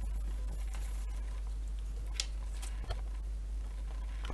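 A few faint clicks and light scrapes from a SATA data cable being handled at a PC motherboard, over a steady low hum.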